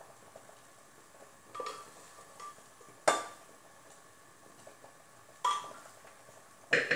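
Metal serving utensil clinking against the pressure cooker and plate while cooked rice is scooped out: four sharp clinks at irregular intervals, each with a short ring.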